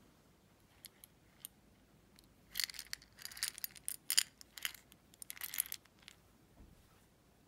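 Mints rattling inside a small round metal Pandora mint tin as it is turned over in the hands: a few single taps, then several quick clusters of sharp clicking rattles.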